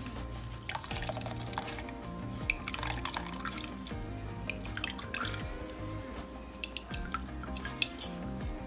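Almond milk dripping and trickling through a mesh sieve into a glass jug as a cloth of soaked almond pulp is squeezed by hand, with irregular wet drips and squelches. Background music plays throughout.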